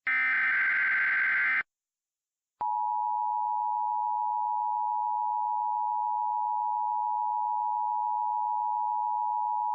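Emergency Alert System tones: a burst of SAME header data, a harsh digital screech lasting about a second and a half. After about a second of silence, the EAS two-tone attention signal starts about two and a half seconds in, a steady, unbroken dual tone heralding a warning.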